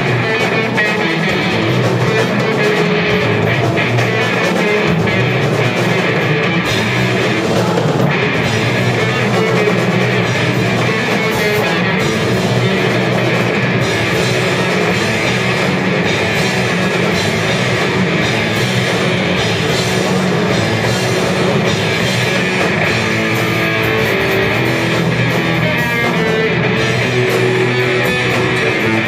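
Live rock band playing loudly and steadily: electric bass, electric guitar and drum kit.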